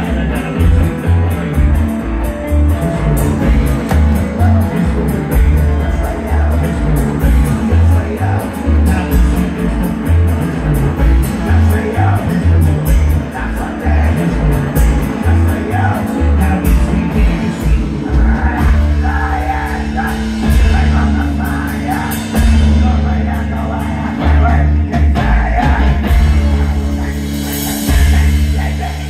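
Live band playing a loud rock song: a singer on a microphone over upright bass, banjo, electric guitar and drums, with a steady beat.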